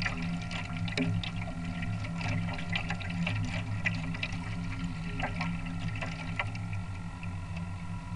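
Water splashing and sloshing against the hulls of a Mini40 RC trimaran under sail, heard from on board the boat: many small quick splashes over a steady low hum.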